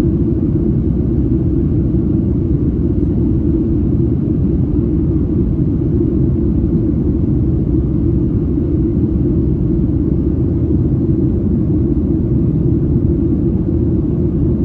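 Steady, even cabin rumble inside a Boeing 737-700 airliner, the noise of its CFM56 engines and airflow heard from a passenger seat.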